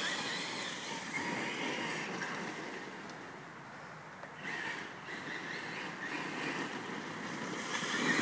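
Brushless Traxxas E-Revo RC truck running on a leaf-strewn gravel path, its motor and tyres kicking up gravel and leaves. The sound fades as the truck drives off, then grows louder again from about halfway.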